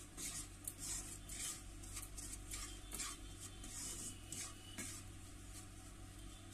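Wooden spatula stirring and scraping semolina roasting in ghee in a nonstick pan: a quick run of gritty strokes, two to three a second, easing off about five seconds in.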